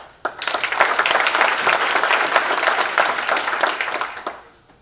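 An audience applauding: about four seconds of steady clapping that dies away near the end.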